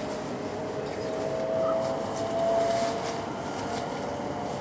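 Cabin running noise of an E5 series Shinkansen pulling away from a station: a steady rumble with a faint whine that rises slowly in pitch as the train gathers speed.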